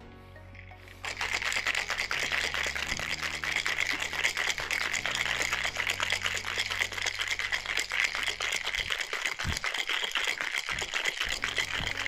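Ice rattling hard inside a cocktail shaker (metal tin over a mixing glass) being shaken vigorously: the wet shake of a whisky sour with egg white after its dry shake. The fast, even rattle starts about a second in and stops near the end.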